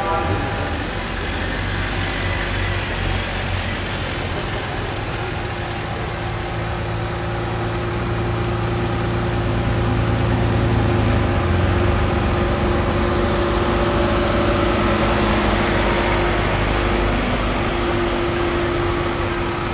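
A slow convoy of vehicles driving past: a motor trike's engine running close by, loudest about halfway through, then heavy truck diesel engines approaching at low speed. A horn sounds briefly at the very start.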